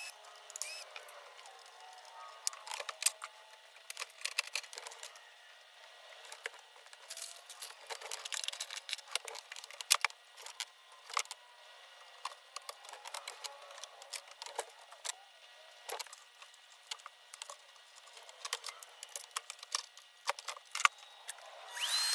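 Sped-up workshop sounds of a computerized sewing machine being taken apart: short whirs of a cordless screwdriver backing out screws, and quick clicks and clatter of plastic covers and tools, the sharpest click about ten seconds in. Right at the end a vacuum motor starts spinning up.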